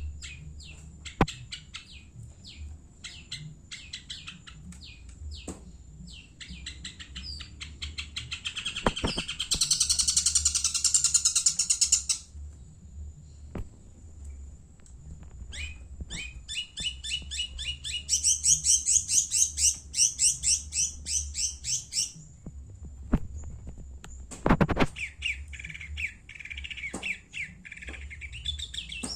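A long-tailed shrike (cendet, Madura type) singing in full voice. Short scattered call notes are broken by two long bursts of rapid, chattering notes, one about eight seconds in and one about eighteen seconds in, with a few sharp single calls in between.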